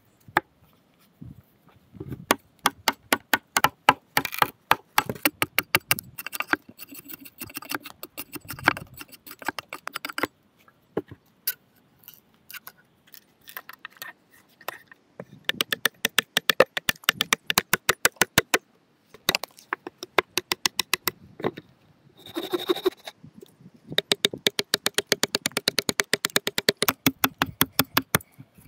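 A wooden cup being carved from a log with a carving gouge and a hatchet: quick runs of sharp cutting and chopping strokes into the wood, several a second, broken by short pauses.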